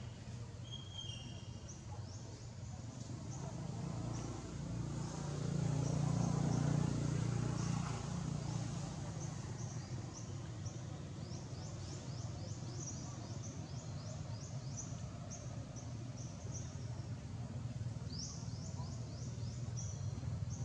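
Forest ambience: a rapid run of short high chirps goes on throughout, over a low rumble that swells between about four and eight seconds in and then settles.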